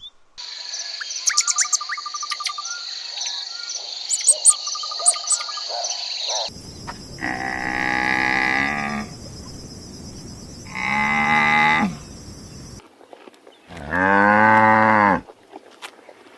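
Insects and birds chirping for about six seconds, with a steady high buzz. Then come long, low animal calls: two about three seconds apart and a third near the end.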